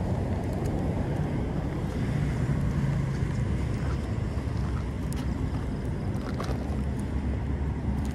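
Steady low rumble of road traffic, with wind on the microphone and a few faint clicks.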